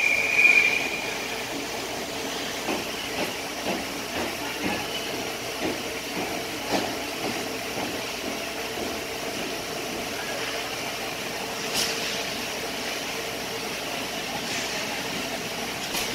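Ice hockey game on an indoor rink. A short referee's whistle blast sounds right at the start, then the arena's steady hum carries faint clatter of sticks, skates and puck. A sharp crack comes about twelve seconds in and another near the end.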